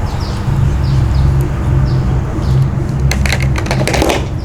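Hand crimping tool squeezing an F-type connector onto coaxial cable: a cluster of clicks and crunching about three seconds in, over a steady low hum and short, repeated falling chirps.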